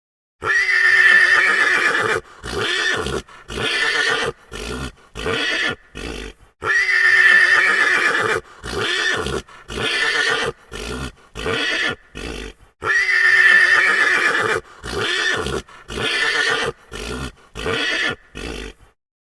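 Horse neighing, the same recorded whinny played three times in a row. Each time a long loud neigh is followed by a run of shorter broken calls that get quieter.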